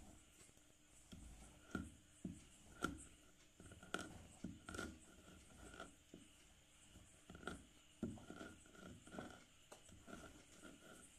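White school chalk sticks being crushed and rolled into powder on a hard surface: faint, irregular crunching and scraping, a dozen or so short crunches.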